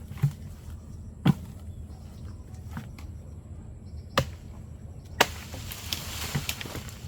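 Sharp chopping or knocking strikes: four loud, irregularly spaced blows, then a few lighter taps near the end, over a steady low hum.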